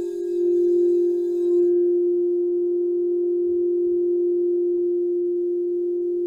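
Singing bowl sounding one sustained steady tone. Its higher overtones die away about a second and a half in, leaving a nearly pure tone.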